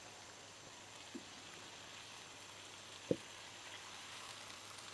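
Faint sizzling as yogurt-marinated chicken leg pieces go into a hot pot, with a soft knock of a piece set down about three seconds in.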